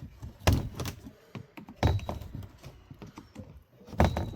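Plastic grille trim and its clips being worked loose by hand: a few sharp knocks and clicks with lighter clatter in between, the clearest about half a second, two seconds and four seconds in.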